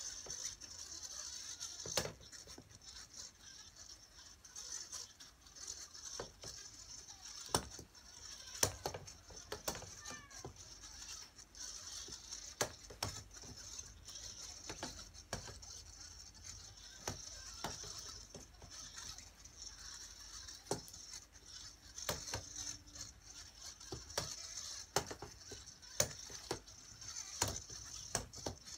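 Sphero robotic balls rolling on a board and knocking irregularly against the wooden frame edges as they collide and change heading, sharp clicks over a steady high whine.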